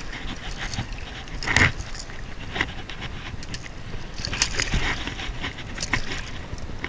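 Fishing tackle handled up close: scattered small clicks and metallic rattles of a lure's hooks and a spinning reel, with a louder clatter about one and a half seconds in, over a steady low rumble.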